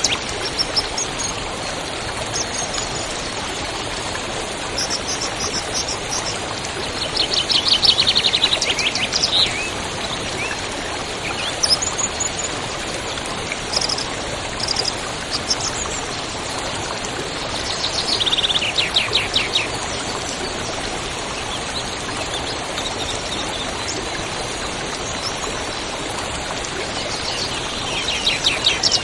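A river flowing steadily, with songbirds singing over it: a fast trill of rapidly repeated notes three times, about ten seconds apart, and short high chirps in between.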